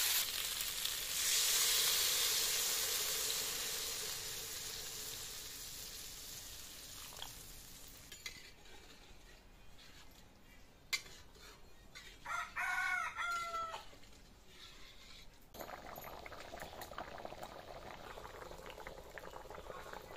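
Water poured onto taro frying in masala in a kadai sizzles loudly, the hiss dying away over several seconds. About twelve seconds in a rooster crows, after a single knock, and near the end the thin curry simmers quietly.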